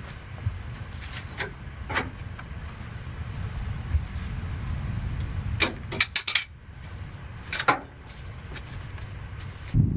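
Scattered sharp clicks and knocks of someone moving about and handling gear, with a quick cluster of them about six seconds in, over a low steady rumble.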